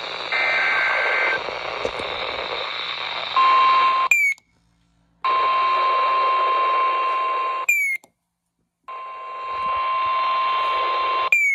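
Emergency Alert System broadcast over a hissy weather-radio signal: a one-second burst of the screechy digital header tones, then the steady single-pitched warning alarm tone. The tone cuts out to silence twice, each cut marked by a short falling chirp.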